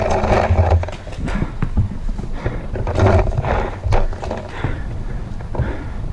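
Paintball markers firing in scattered sharp pops over a constant low rumble on a head-mounted camera's microphone.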